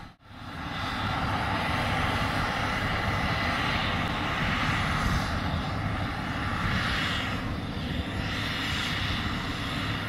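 Steady, unbroken machine noise with a low hum, fading in over the first second after a sharp dip.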